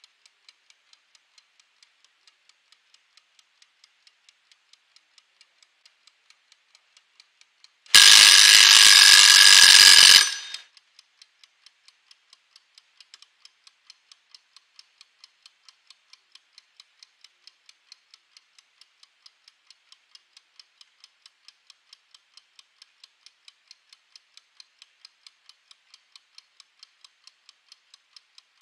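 Mechanical wind-up kitchen timer ticking, about four ticks a second. About eight seconds in its bell rings loudly for about two seconds as the timer runs out, then the ticking goes on.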